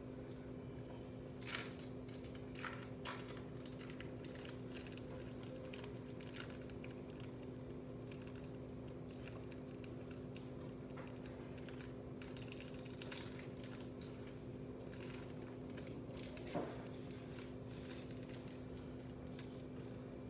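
Quiet indoor room tone: a steady low hum with scattered light clicks and a few sharper knocks, the loudest about a second and a half in and again near the end.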